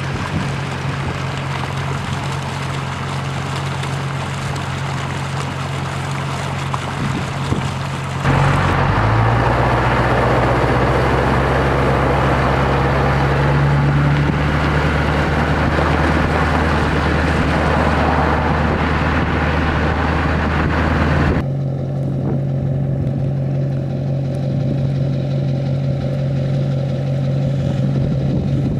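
An engine runs steadily with a low hum throughout. From about 8 to 21 seconds a louder rushing noise joins it, then it drops back to the plain hum.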